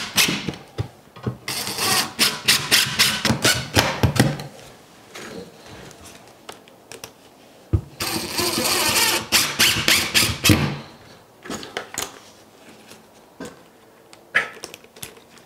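Cordless DeWalt drill-driver running in two rapid, rattling bursts, one about a second and a half in and another about eight seconds in, as it drives screws through a plastic drain flange into a plywood subfloor.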